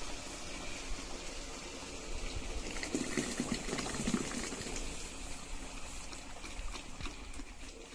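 Watermelon juice and pulp poured from a hollowed-out melon splash into a metal bowl for a second or so, about three seconds in. Faint scraping of spoons in melon flesh runs alongside it.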